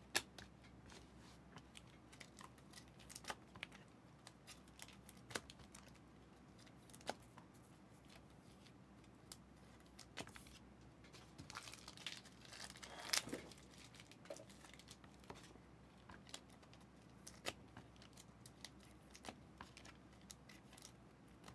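Faint rustling, crinkling and light clicks of trading cards and foil pack wrappers being handled, with a louder crinkle about 13 seconds in.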